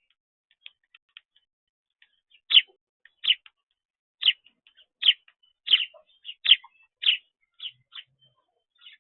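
A small bird chirping: a few faint chirps at first, then a run of about ten short, sharp chirps, roughly two a second.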